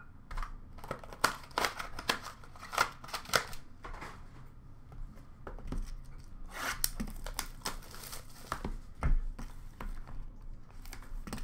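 Hands handling trading-card boxes and their packaging: a string of short clicks, scrapes and crinkles of cardboard and plastic, with a heavier knock about nine seconds in.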